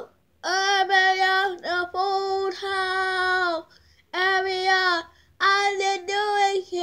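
A child's voice singing long held notes, almost all on one pitch, in four phrases with short breaks between them.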